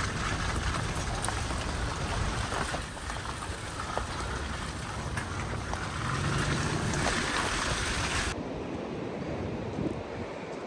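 Steady rumbling noise with scattered small ticks, then, after an abrupt change about eight seconds in, a quieter hiss of wind and ocean surf.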